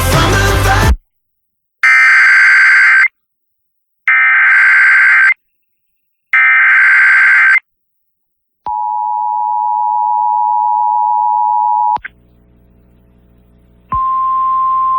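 Emergency Alert System broadcast over FM radio: three screeching SAME data header bursts about two seconds apart, then the steady two-tone attention signal for about three seconds, marking the start of a new alert. A low hum follows, then a single steady tone near the end.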